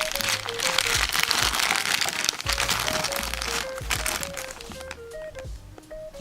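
Packaging crinkling and crackling as a small miniature-toy box is unwrapped, dying down after about four seconds, over background music with a simple stepping melody.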